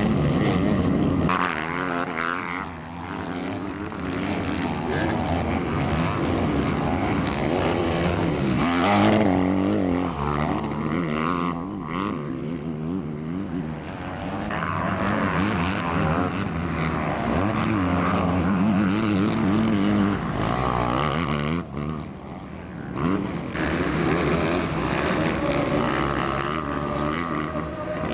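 Several motocross bikes' engines revving hard, pitch rising and falling with the throttle, as they race past.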